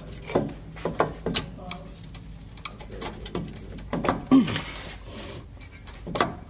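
Box-end wrench being worked in short strokes on a tight, rusty bolt in a truck's front suspension: a run of irregular metal clicks and scrapes, several a second.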